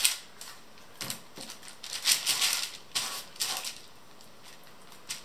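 Hands handling marinated lamb chops on baking paper and pressing them into a container: a handful of short rustling, crinkling and wet handling noises about a second apart, dying away about four seconds in.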